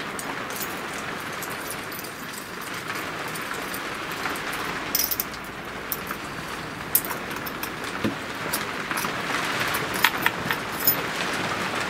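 Small metal clicks and taps as a bolt and a metal hold-down clamp are handled and fitted on an MDF spoilboard, over a steady hiss.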